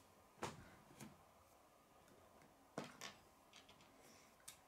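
A few faint clicks and knocks of plastic K'nex pieces as the model is handled and set down on a wooden table, in otherwise near silence.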